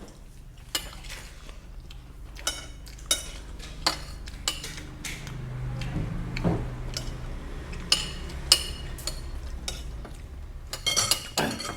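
Spoon and fork clinking and scraping against a plate while eating, in short, sharp clinks scattered every second or so, with a quick run of clinks near the end.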